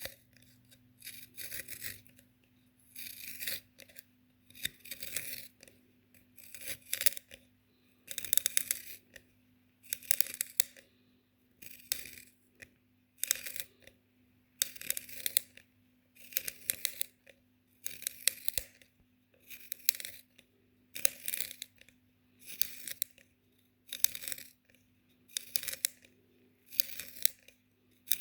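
A pencil being sharpened: rasping shaving strokes repeated about every one and a half seconds, steady and even.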